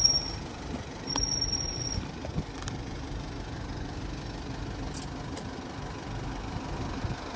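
Motor vehicle engine running, a steady low rumble. A thin high tone sounds briefly twice in the first two seconds.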